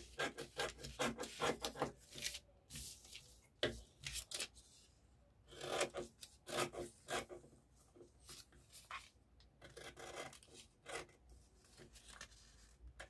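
Scissors cutting paper pattern in runs of short snips with pauses between, along with the paper rubbing and sliding on a wooden table.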